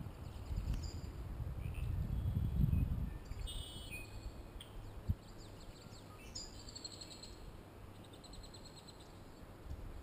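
Small birds calling and singing: scattered high chirps and short sweeps, and a rapid trill of repeated high notes about six seconds in. A low rumble sits under the first three seconds, and a single sharp click comes about five seconds in.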